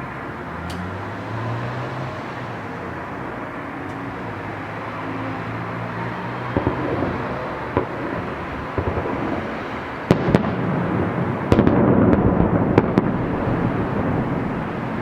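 Festive fireworks salute going off over steady background noise: a few scattered bangs about halfway through, then a louder, dense run of bursts and crackles near the end.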